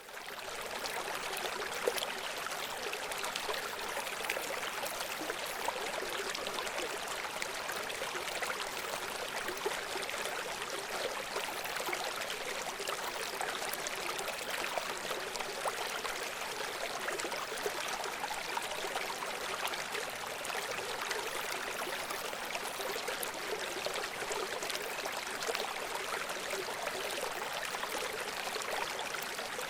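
A river running steadily over rocks, a constant rushing with many small splashes and gurgles, fading in at the start.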